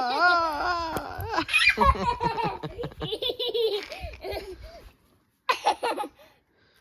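A young child laughing hard, in a high, warbling laugh that swoops up and down and then breaks into shorter giggles. It stops about five seconds in, and one brief burst of laughter comes near the end.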